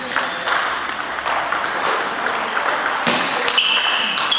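Table tennis rally: the ball clicking off bats and table in quick, irregular succession in a reverberant sports hall, with a short high squeak near the end.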